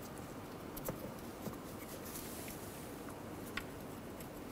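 A few faint clicks of small nuts being threaded by hand onto studs in a plastic inner fender liner, over a steady low hiss.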